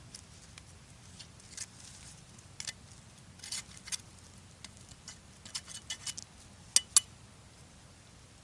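Twigs and dry forest litter crackling and snapping in irregular bursts, with two sharp louder clicks close together about seven seconds in.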